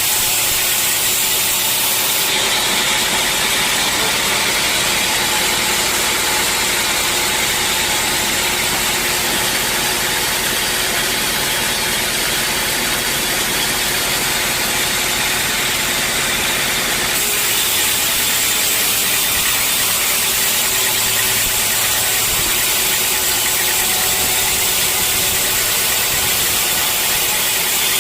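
Sawmill saw and its drive running steadily with a loud, hissy machine noise that turns brighter and harsher from about two seconds in until past halfway.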